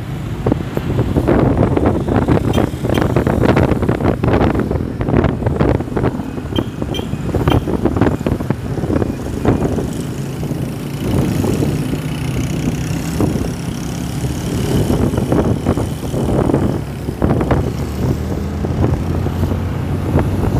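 Wind buffeting the microphone on a moving motorcycle, gusting irregularly over the steady low hum of the motorcycle's engine.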